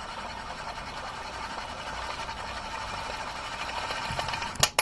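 Crankshaft main bearings of a Husqvarna 3120 XP chainsaw spinning with the flywheel off, a steady fine whirring rattle. The owner judges they sound pretty good. Two sharp clicks come just before the end.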